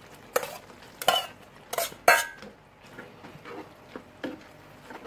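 Metal tongs and a metal bowl clinking against a frying pan as spaghetti is tipped into the sauce: four sharp clinks in about the first two seconds. After that come softer scrapes and squelches as the noodles are stirred through the sauce.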